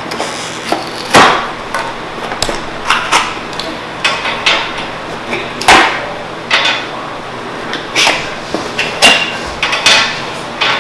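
Hard plastic toy pieces knocking and clacking as they are handled and set down: about fifteen irregular sharp knocks, some loud.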